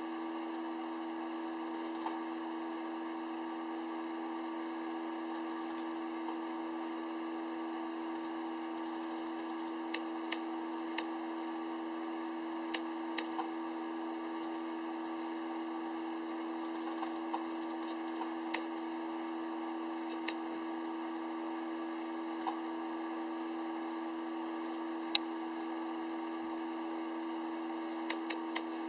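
Scattered clicks of a computer keyboard and mouse as coordinate numbers are entered into a table, with one louder click near the end. Under them runs a steady hum.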